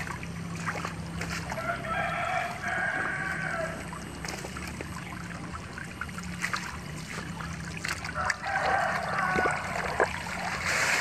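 A rooster crowing twice, about two seconds in and again near the end, over water trickling from a pipe onto wet ground.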